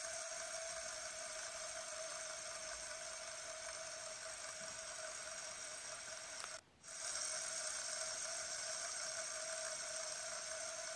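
Fidget spinner spinning on its ball bearing, giving a steady whirring hum that briefly cuts out a little past the middle.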